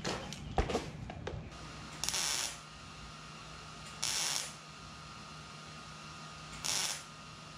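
MIG welder laying three short tack welds on sheet steel, each a burst of crackling hiss about half a second long, spaced about two seconds apart. A faint steady hum runs between the welds, and a few knocks and clicks of handling come in the first second or so.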